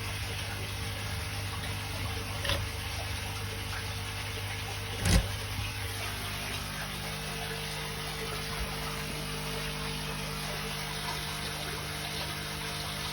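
Steady sound of running water with a pump-like hum, whose tone shifts about six seconds in. There is a light click a couple of seconds in and a sharper knock about halfway through.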